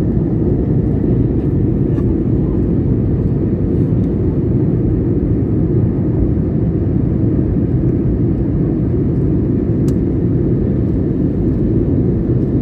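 Airliner cabin noise in flight: a steady low rush of the jet engines and airflow, with a faint steady hum running through it.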